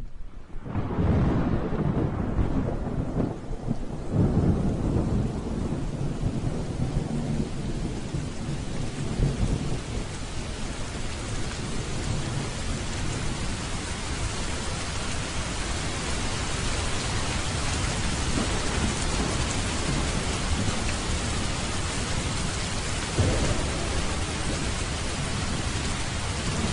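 Steady rain with rolling thunder: low rumbles swell about a second in, again around four seconds in, and once more near the end, while the rain hiss grows gradually fuller.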